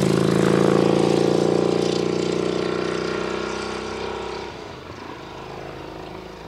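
Godet-Egli-Vincent Sport GT's 1300cc Vincent V-twin engine and exhaust riding away at a steady throttle, its note fading as the bike recedes and dropping much lower about four and a half seconds in.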